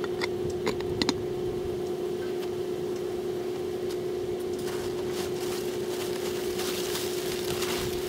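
A furnace lid knocks down onto the foundry furnace twice, about a second in, then a plastic tarp rustles louder through the second half. A steady hum at one pitch runs underneath throughout.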